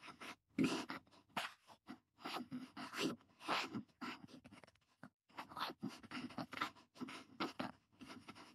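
Cardboard Domino's pizza box being handled and closed: a run of irregular scraping and rustling of cardboard.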